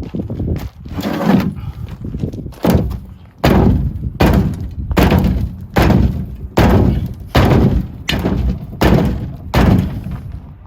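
Sledgehammer blows on the steel rim of a 1925 Galion's front wheel, knocking the old tyre bead loose from the rim flange. Heavy thuds with a short ring, a few scattered at first, then a steady run of about three blows every two seconds.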